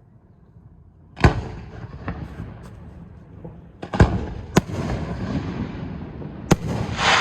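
Aerial fireworks shells bursting: several sharp bangs, about a second apart at first, then with longer gaps, each followed by an echoing rumble, and a longer noisy burst near the end.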